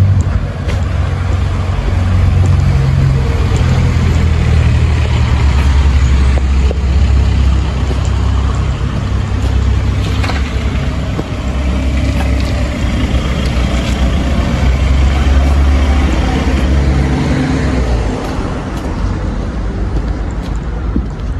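A motor vehicle's engine running close by: a loud, steady low rumble that eases a little near the end.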